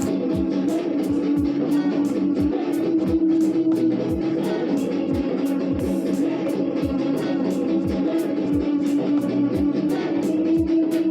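Dance music with a steady beat and guitar.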